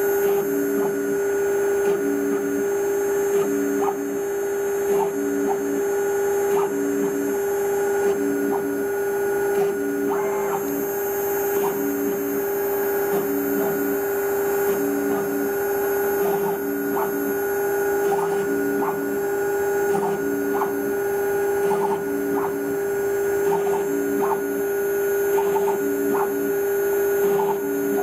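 Small CNC router engraving an anodized aluminum pet tag: the spindle runs with a steady high whine while the machine's axis motors make short, regular moves that repeat about every second and a half.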